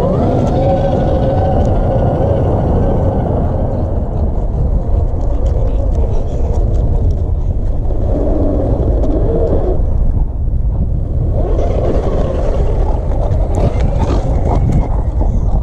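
Axial SCX10 II RC crawler's electric motor and geared drivetrain whining as it crawls over rock. The whine rises and falls in pitch with the throttle over a steady low noise, and eases off briefly a little past the middle.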